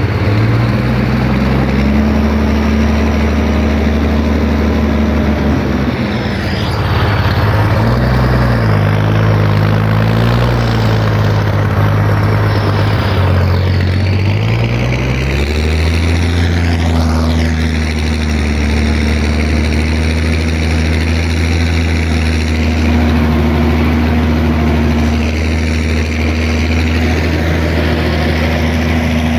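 Zetor tractor's diesel engine running under load, heard close up from the cab, while it pulls a mounted plough through wet soil. Its pitch dips and wavers for several seconds around the middle, then settles back to a steady note.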